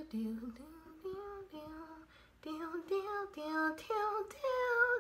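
A girl singing a tune on her own with no accompaniment, in short held notes that step up and down.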